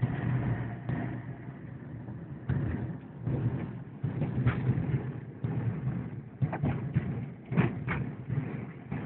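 Car driving slowly, its engine and road noise heard from inside the cabin as a steady low rumble, with a few knocks near the end.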